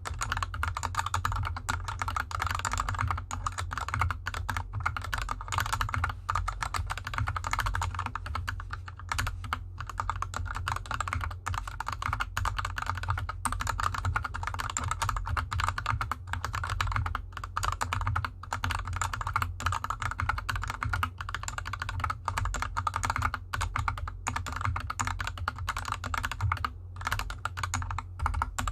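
Continuous fast typing on a GK64X 60% mechanical keyboard with Gateron Yellow linear switches lubed with Krytox 205g0 and DSA keycaps, a dense run of key strikes, with the keyboard resting on felt fabric. A steady low hum sits underneath.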